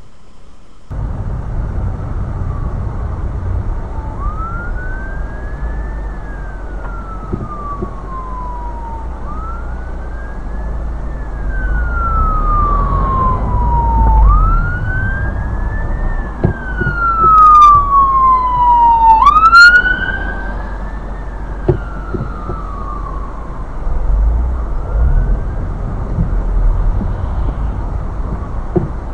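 Emergency vehicle siren sounding a slow wail, rising and falling about every five seconds, over a steady low road rumble. Around the middle, where it is loudest, a second, higher siren tone sweeps briefly alongside it.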